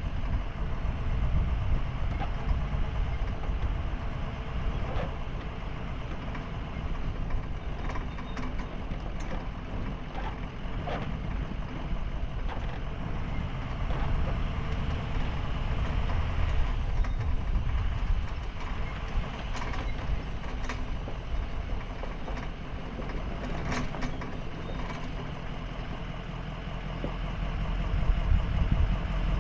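Sportsmobile van driving slowly over a dirt track, a steady engine and tyre rumble heard from a camera on its roof, with scattered clicks and knocks.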